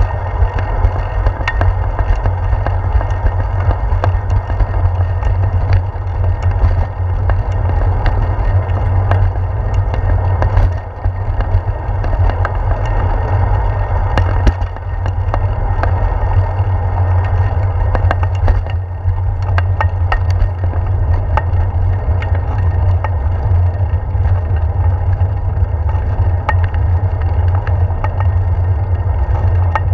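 Riding noise picked up by a handlebar-mounted GoPro Hero 4 on a moving bicycle: heavy, steady wind rumble on the microphone with tyre noise on a concrete path, and scattered short clicks and rattles as the bike goes over bumps and joints. The rumble briefly drops twice near the middle.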